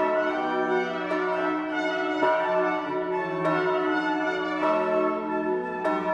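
Swinging bronze church bell ringing, struck evenly about every 1.2 seconds, each stroke ringing on into the next.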